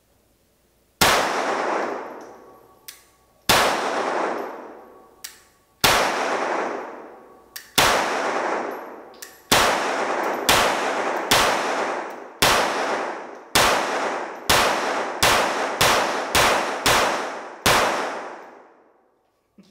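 Shots from a compact Tanfoglio .380 ACP pistol in an indoor range, each one echoing and dying away over a second or more. About sixteen shots: slow, deliberate ones a couple of seconds apart at first, then a quicker string of about two a second near the end.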